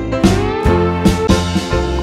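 Background music with a steady beat and a note that slides upward near the start.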